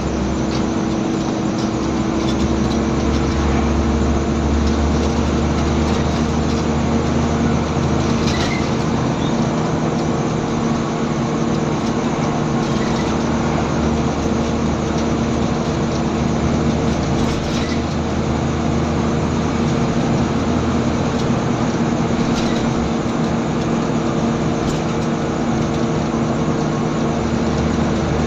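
Scania N94UB single-deck bus's diesel engine running at a steady engine speed under way, a continuous even drone with a few faint rattles.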